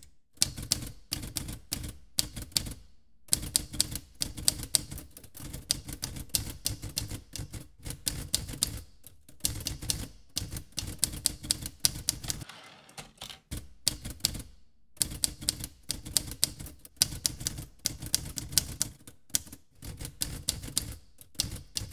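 Manual typewriter keys clacking in rapid runs of strikes, broken by short pauses.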